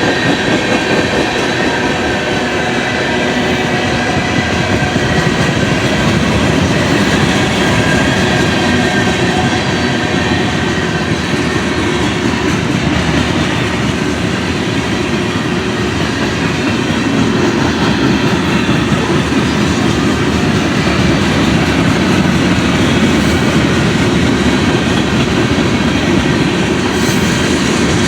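Freight train cars rolling past: a steady, loud rumble and rattle of steel wheels on the rails, with faint steady high-pitched squeal tones over it.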